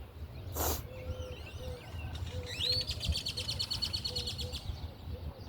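A songbird sings a rising note that runs straight into a fast, even trill lasting about two seconds. A lower, softer call repeats in short notes behind it, and there is a brief rustle about half a second in.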